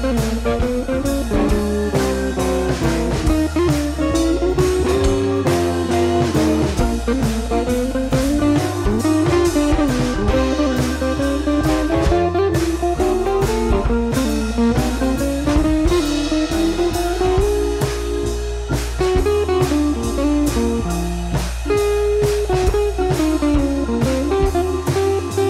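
Background music: a blues-style guitar tune over a steady drum-kit beat.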